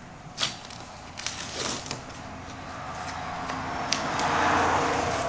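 Masking tape being peeled off a car's window trim and fresh paint: a few short crackles, then a longer tearing rasp that grows louder toward the end.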